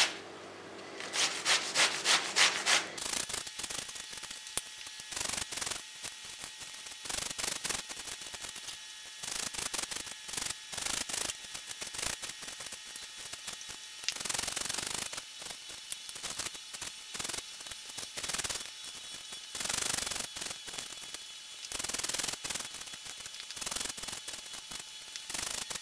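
Zucchini being grated on a flat handheld metal grater: repeated back-and-forth strokes of the vegetable across the grater's blades, a few a second.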